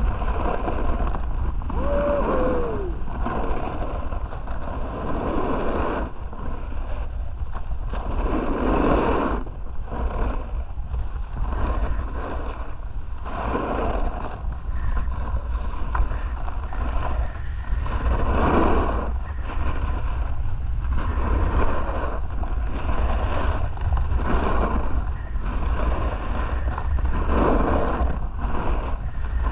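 Wind buffeting the camera's microphone while riding a snowboard, with the scrape of the board's edges on groomed snow swelling and fading every couple of seconds as it turns.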